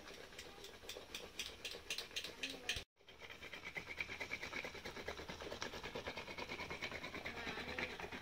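A wooden stick spun back and forth between the palms to churn a thick jackfruit-seed and fish mash in a metal wok, making a fast, even clatter of several ticks a second against the pan. It cuts out for a moment about three seconds in, then carries on.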